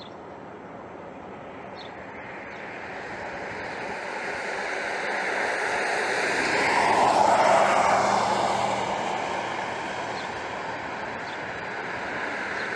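A passing vehicle's road noise, growing louder, peaking about seven to eight seconds in, then fading away.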